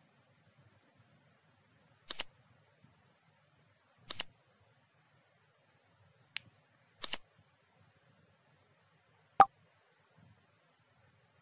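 Short sharp click sounds over faint hiss: quick double clicks about two, four and seven seconds in, and single clicks in between, the last a louder pop with a short tone. They are typical of app tap sound effects.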